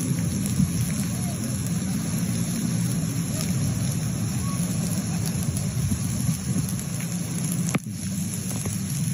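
Steady low rushing noise of floodwater running down a flooded street. A single sharp click comes near the end.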